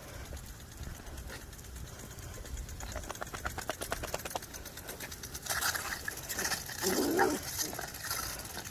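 Lawn sprinkler head spraying and ticking rapidly, about eight ticks a second, as a Yorkshire terrier bites at its jet. The spray hiss grows louder in the second half, with a short low growl-like sound about seven seconds in.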